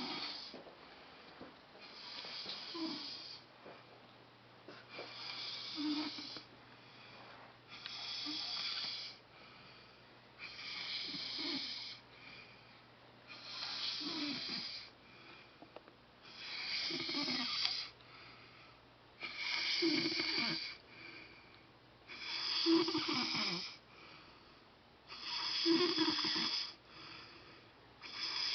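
A man snoring loudly, one long snore about every three seconds, the snores growing louder toward the end.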